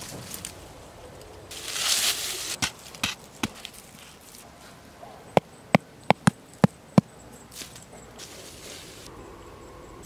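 A wooden stick stake being pounded into hard earth: six sharp knocks in quick succession from about five to seven seconds in. Before that, a short burst of rustling with a few light clicks about two seconds in.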